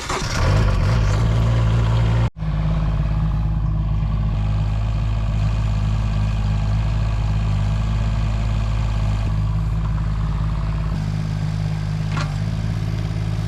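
Excavator's diesel engine coming up to speed just after starting, then running steadily with a low, even drone. There is a momentary break about two seconds in.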